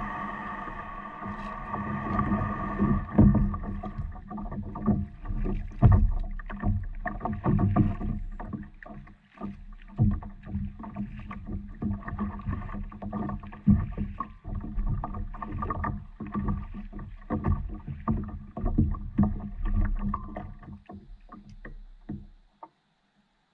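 Knocks and water splashes on a fishing paddleboard's deck and hull as someone climbs aboard with a paddle and moves about on it. Steady held tones run underneath, and everything cuts off suddenly near the end.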